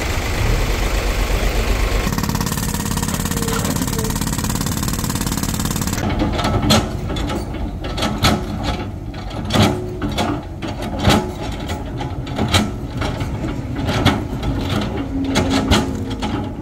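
Hydraulic excavator working at a concrete wall: a steady engine noise at first, then repeated sharp knocks of the bucket striking concrete, the loudest about every second and a half with smaller ones in between.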